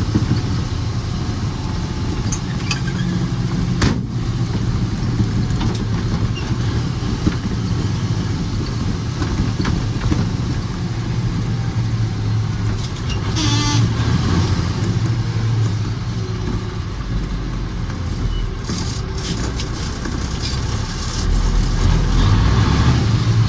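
Autocar truck's diesel engine running steadily, with a few light clicks and rattles, getting louder near the end.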